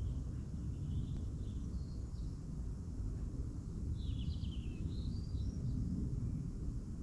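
Birds chirping a few times, most busily from about four to five and a half seconds in, over a steady low rumble.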